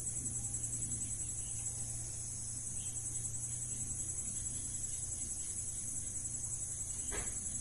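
Insects, crickets by the sound of it, keeping up a steady high-pitched pulsing trill, with a faint low hum underneath.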